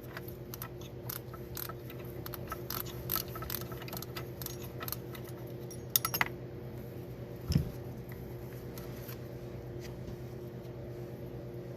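Metal parts of a 1990s Honda manual-transmission gear selector clicking and clinking as they are handled and fitted together: quick light clicks through the first half, then a few louder knocks past the middle. A steady low hum runs underneath.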